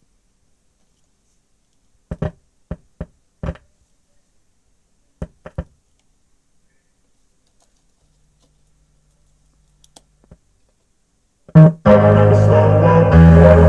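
A few sharp clicks in two small groups and a faint low hum, then a thump, and music with heavy bass starts playing loudly near the end through a homemade transistor bass amplifier (D718 and 2SA1943 transistors).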